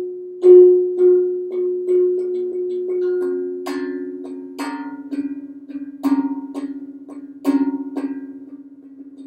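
Bell-like tuned percussion struck again and again, about twice a second, each note ringing over a sustained low tone that drops to a lower pitch about three seconds in. A few harder strikes in the second half ring out brighter.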